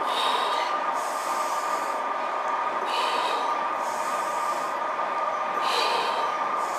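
A lifter breathing out sharply, hissing, about once every three seconds in time with seated dumbbell shoulder-press reps. Underneath runs a steady droning background hum.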